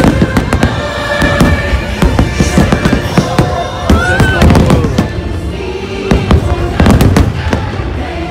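Aerial fireworks going off in a rapid, irregular series of bangs over music.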